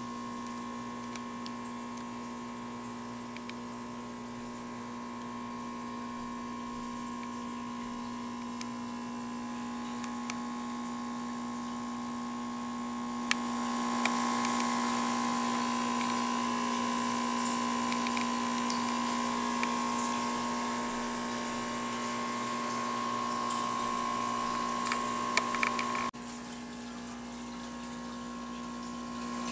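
Steady electric hum of aquarium equipment with water noise from the tank's pump. It gets louder about halfway through and drops suddenly near the end.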